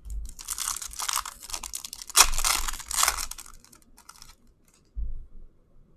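Crinkling and rustling of a foil trading-card pack wrapper and cards being handled, loudest a little past two seconds in, with a dull knock near the end.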